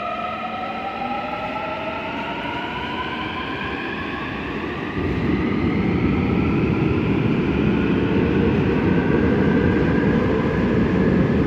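Seoul Subway Line 5 third-batch electric train pulling away from a station: its traction inverter and motors whine in several tones that rise steadily in pitch as it accelerates. About five seconds in, a louder rumble of wheels on rail joins and stays as the train gathers speed.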